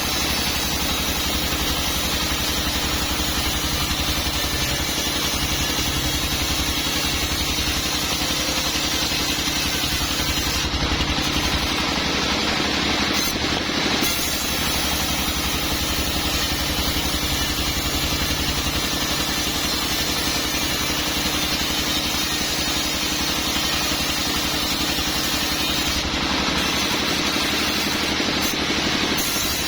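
Sawmill machinery running steadily, a continuous engine-like drone with steady tones that holds the same level throughout.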